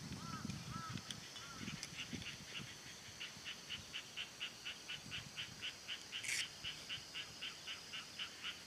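A rhythmic animal call, short pulses repeating about four times a second from about two seconds in, over a steady high-pitched insect drone. Faint murmured voices at the very start, and a brief hiss about six seconds in.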